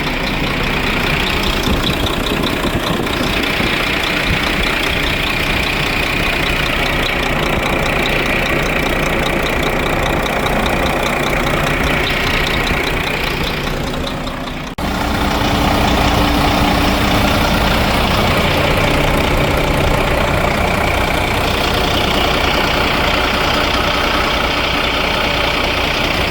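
Volvo FH truck's six-cylinder diesel engine idling steadily at about 600 rpm while still cold, just after repair of its valve train. The sound cuts out for an instant about fifteen seconds in and then carries on.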